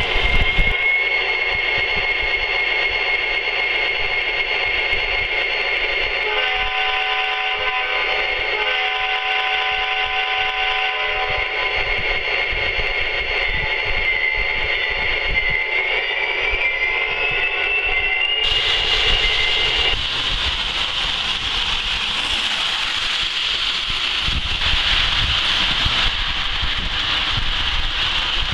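O-gauge model trains running on three-rail track: a steady rolling rush of wheels on the rails. A few seconds in, a horn chord from a locomotive's sound system sounds for about two and a half seconds.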